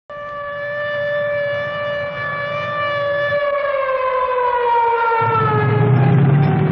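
Air-raid siren wailing: one steady tone that slowly falls in pitch through the second half, sounding the warning of an attack. A low rumble joins about five seconds in.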